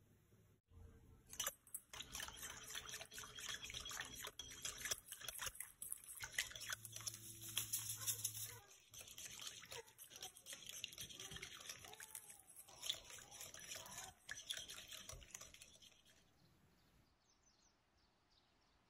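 Small hand whisk beating a milky liquid mixture in a glass bowl: rapid, irregular clicking and sloshing that stops a couple of seconds before the end.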